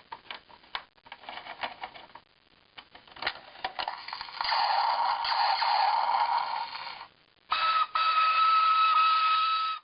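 Battery-operated sound effects of vintage 1978 Kenner Star Wars toy fighters, after a few seconds of light plastic clicks and knocks. A buzzing effect runs for about three seconds. After a short break, a second effect with a steady high tone cuts off abruptly.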